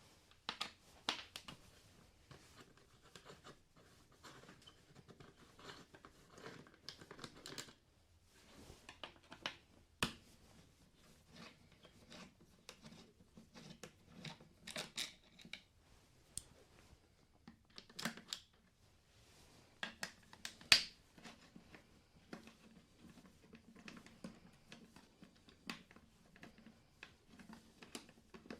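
Light, scattered clicks and scrapes of a 4 mm hex key working the four bolts of a Yamaha XV 950 Bolt's air filter cover, and of the cover being handled, with a sharper click about twenty seconds in.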